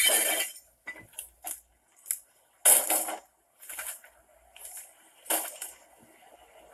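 Plastic garbage bags being swung and tossed, rustling and crashing in several short, separate bursts.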